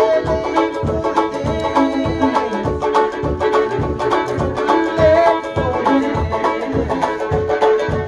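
Fiddle and banjo duet playing a traditional old-time fiddle tune, with a steady low beat about twice a second.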